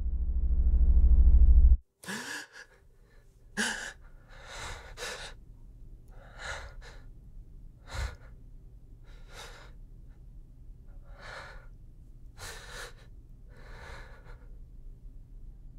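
A low synth drone swells up and cuts off abruptly about two seconds in. A sharp gasp follows, then a string of heavy breaths, roughly one a second, over a faint low hum.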